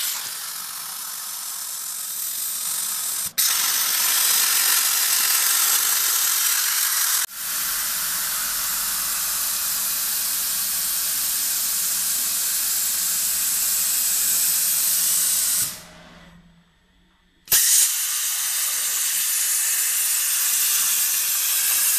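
CNC plasma cutter torch cutting steel plate: a loud, steady hiss of the plasma arc. It breaks off briefly a few times, and near the end it drops to near silence for about a second and a half before starting again.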